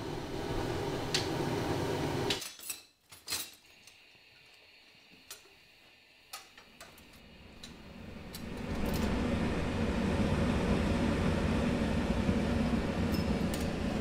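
A steady roar of a glassblowing furnace flame cuts off abruptly after about two seconds. Then comes a near-quiet stretch with scattered sharp clicks and clinks. A steady, low rushing rumble fades in from about eight seconds and holds.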